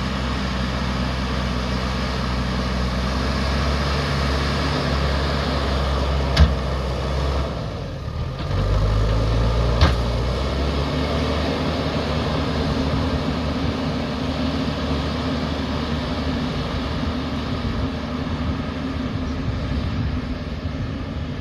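JCB backhoe loader's diesel engine running steadily. Its note dips about eight seconds in and comes back at a different pitch as the load changes. Two sharp knocks come, a few seconds apart, around the middle.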